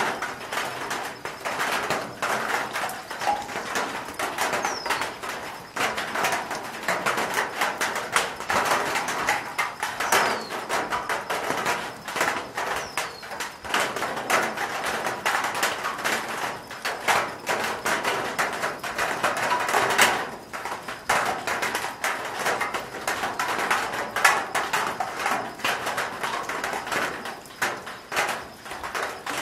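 Raindrops falling on a corrugated metal roof: a dense, uneven stream of sharp ticks and taps, with the odd louder drop standing out, one near twenty seconds in. A few faint short high chirps sit behind it.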